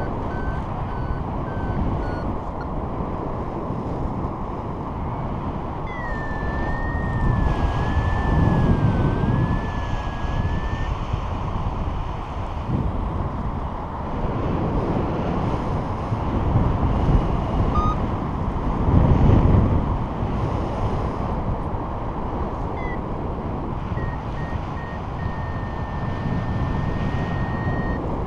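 Wind rushing over the helmet-camera microphone in flight, swelling in two gusts. Over it, a BlueFly flight variometer sounds: short beeps near the start, a continuous wavering tone for a few seconds in the middle, then beeps that run into a steady tone near the end.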